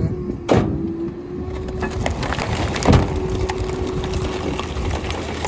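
Crunching and splintering of discarded fridge contents being crushed, with two sharp cracks about half a second and about three seconds in, over a steady low hum.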